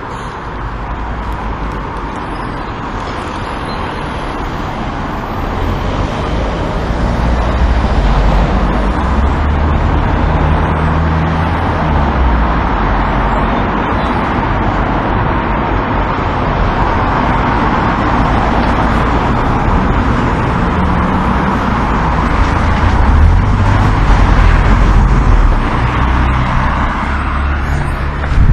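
Busy road traffic passing close by: steady engine and tyre noise with a low rumble, growing louder about six seconds in.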